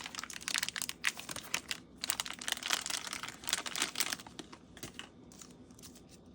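Toy packaging wrapper crinkling and crackling as it is handled and pulled open, dense for the first four seconds or so, then thinning out to a few faint crackles.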